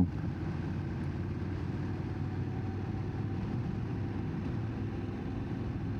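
Motorcycle engine running at a steady cruise, with road noise.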